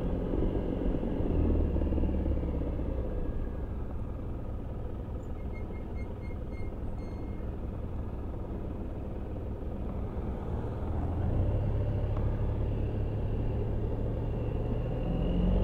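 Suzuki Burgman 650 scooter's parallel-twin engine running while riding at low speed, with a steady low engine and wind rumble that grows louder from about eleven seconds in. A string of faint, short high beeps sounds about five to seven seconds in.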